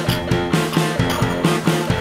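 Guitar-led rock music with pitched notes repeating in a quick, even rhythm, about four a second.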